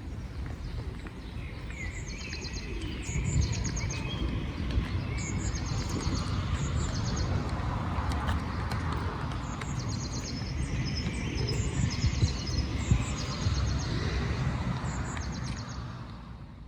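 Small birds chirping in repeated short, high trills over a steady low outdoor rumble; the sound fades out at the end.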